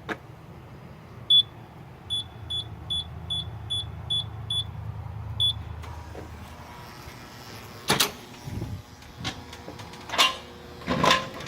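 Electronic keypad beeping about nine times as an access code is punched in, over a low hum. Then a few knocks and clatters, like a door being opened.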